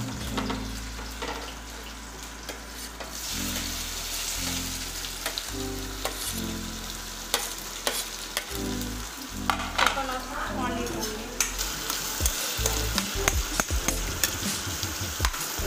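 Chopped onions sizzling in hot oil in a stainless steel kadhai, the sizzle growing brighter about three seconds in. A metal spatula stirs them, with many short clicks and scrapes against the pan in the second half.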